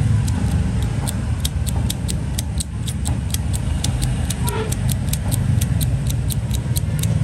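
Steady low rumble of road traffic, with a rapid, even ticking of about four to five ticks a second over it.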